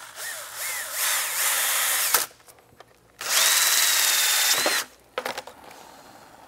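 Cordless drill spinning a hole saw through a plastic snowmobile body panel in two runs: the first about two seconds, the second about a second and a half with a steady high whine. A few light clicks follow.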